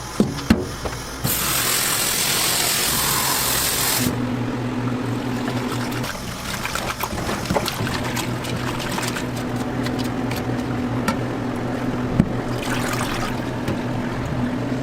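Street-food cooking sounds: loud hissing that starts and stops abruptly over about three seconds, then a steady low hum with scattered clicks and knocks.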